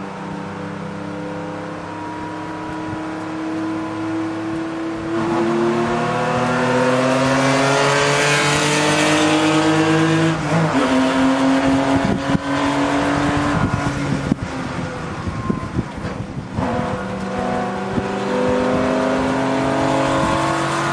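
Race car engine heard from inside the cockpit, accelerating hard with its pitch climbing and dropping at upshifts about five and ten seconds in. Midway the engine note breaks up as the driver lifts and downshifts, then it climbs again under power near the end, with wind rushing past.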